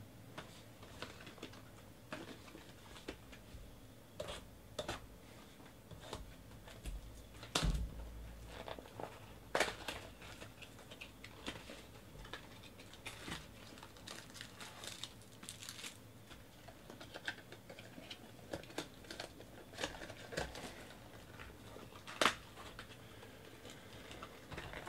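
A cardboard trading-card box being opened by hand and its wrapped card packs handled: scattered crinkling, rustling and light knocks, a few louder ones along the way.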